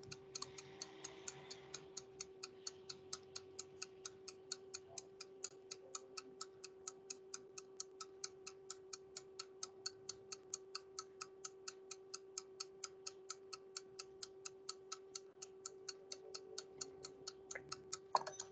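Timer ticking steadily and fast, about four ticks a second, over a faint steady hum.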